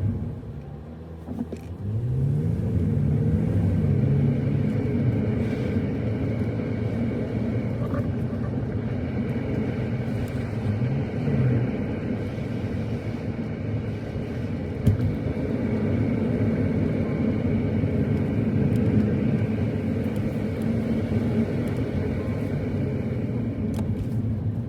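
Car driving along a road, its engine running steadily under a rumble of road noise. The engine pitch rises and falls a couple of seconds in, and again briefly near the middle, as it speeds up and eases off.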